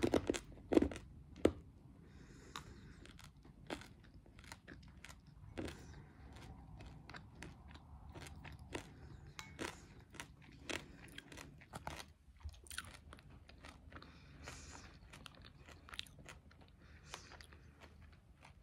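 Chewing and crunching of brownie M&M's, the candy shells cracking between the teeth, with the loudest crunches in the first second and a half.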